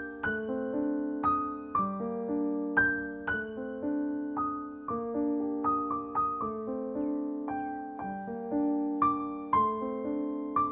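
Background piano music: a melody of single notes struck about twice a second, each ringing and fading.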